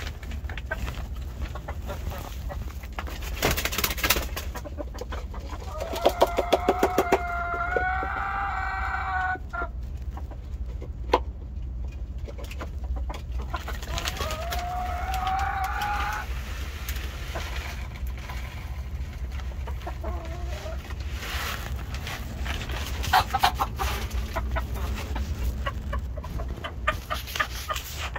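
A rooster crows once with a long drawn-out call about six seconds in, then gives a shorter rising call around the middle. Chickens cluck quietly in between.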